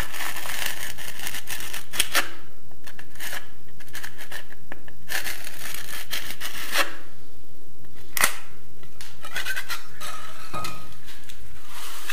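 A hand-held blade scraping and cutting away excess plaster in an inside wall corner, in repeated rasping strokes with a few sharp clicks.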